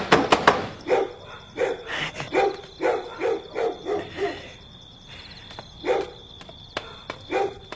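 A dog barking: a quick run of barks, about three a second, then a pause and two single barks near the end. A couple of sharp thuds come right at the start.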